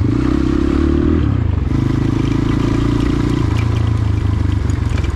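Motorcycle engine running under way on a rough dirt road, its pitch shifting with throttle about a second in and again past three seconds, with light rattling clicks over it.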